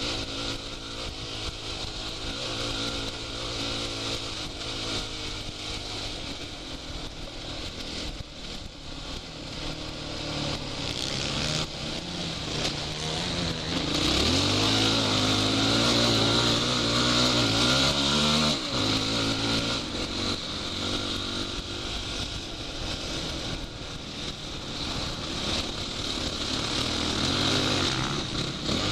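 Dirt bike engine heard from the rider's goggle camera, running hard with the throttle rising and falling over sand and mud. About halfway through it revs up hard for several seconds, its pitch climbing, then drops off suddenly.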